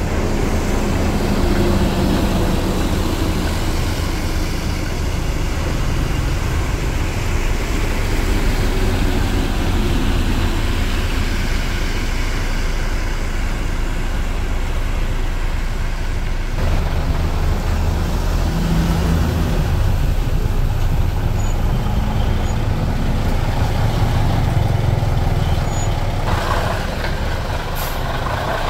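Road traffic on a wet road: heavy trucks and a van passing, with a steady low engine rumble and a short hiss near the end.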